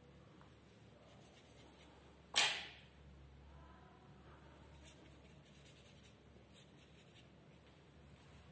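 Faint scratching of a watercolour brush working on paper, with one sudden, louder swish about two and a half seconds in.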